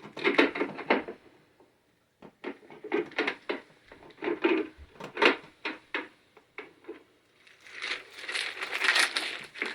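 Handling noises of a switch cover plate being fitted over a duplex wall switch: irregular clicks, light knocks and scraping, with a longer stretch of rasping scrape near the end.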